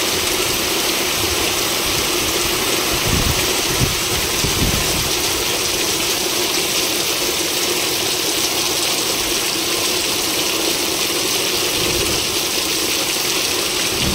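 Heavy downpour, a steady dense hiss of rain pelting corrugated sheet roofs and muddy ground in a strong storm wind. There are a few low wind buffets on the microphone about three to five seconds in.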